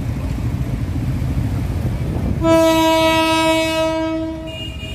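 Locomotive horn sounding one long, steady blast of about two seconds, starting about halfway through, over a constant low rumble of traffic. Just before the end a higher-pitched horn begins.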